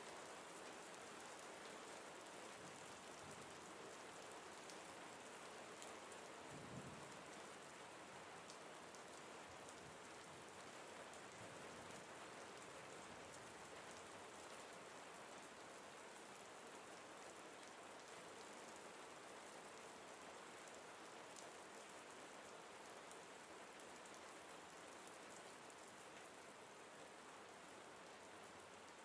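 Steady soft rain: an even hiss with a light patter of drops. There is a brief low thump about seven seconds in.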